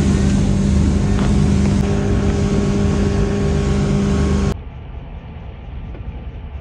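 Motorboat engine running at cruising speed: a loud, steady drone with wind and water rush. It cuts off abruptly about four and a half seconds in, leaving a much quieter low rumble.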